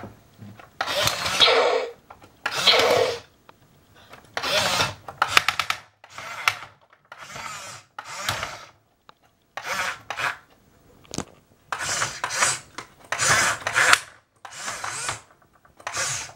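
Battery-powered Action Man toy jeep giving out a string of short rasping bursts with brief gaps between them, some with a fast ticking grain.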